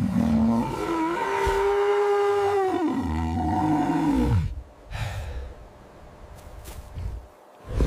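An animal's long drawn-out call, its pitch rising over the first second, held, then falling away before it ends about four and a half seconds in, followed by a few short separate calls or breaths.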